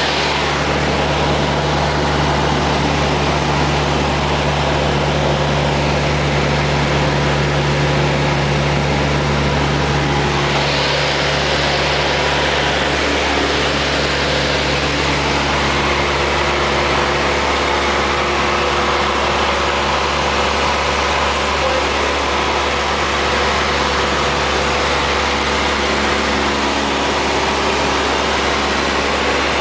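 Single-engine Cessna's piston engine and propeller droning steadily in cruise, heard from inside the cabin along with the rush of air. The tone shifts slightly about 13 seconds in.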